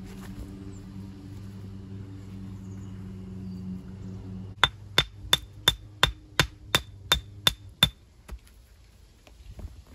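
A hammer striking in stone walling: ten quick, evenly spaced blows, about three a second, each with a short metallic ring. A steady low hum runs under the first half and fades as the blows begin.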